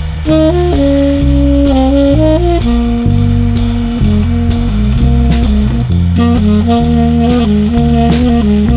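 Background music: a jazzy tune with a saxophone-like lead melody over bass and a steady drum beat.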